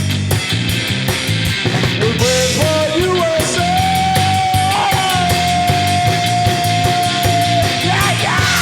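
Rock band playing loudly, with drums and bass under a lead line that climbs in a few steps and then holds one long high note for about four seconds.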